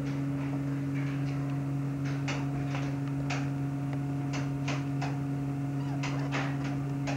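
Steady low electrical hum, joined by a faint higher steady tone about a second in, with scattered short soft scratches and rustles from a newborn being handled and her hair combed at her bath.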